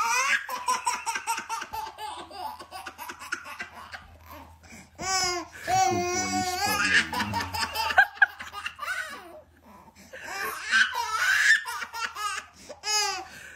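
Baby laughing hard in repeated spells of belly laughter.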